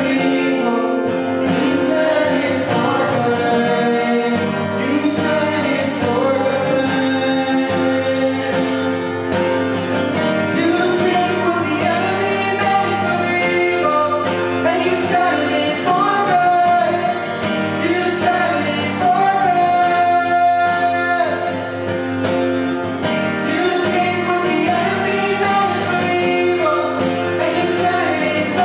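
Worship song with singing over guitar and accompaniment, a steady beat throughout.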